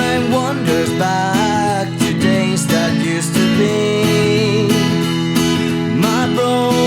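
Instrumental break in an acoustic song: strummed acoustic guitar with a bending, gliding lead melody line over it.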